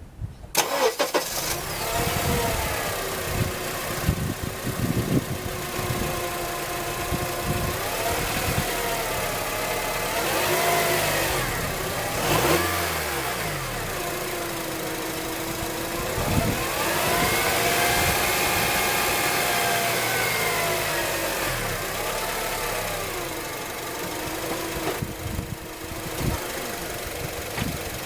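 Whine and whirring from the automatic transmission of a 2004 Acura TSX at about 138,000 miles, heard over engine and road noise. The whine rises and falls in pitch several times as the car speeds up and slows. The owner is unsure of the cause, and commenters suggest the torque converter; the car shifts normally and shows no warning lights.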